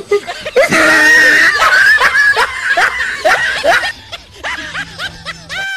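A quick run of short laughs, loud for the first four seconds and then fading to a few quieter ones.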